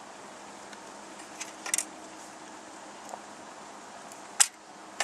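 A few small, sharp clicks and crackles from carp rig gear and a PVA stick being handled, over a steady background hiss; a quick cluster of clicks comes about a second and a half in and the loudest single click about four seconds in.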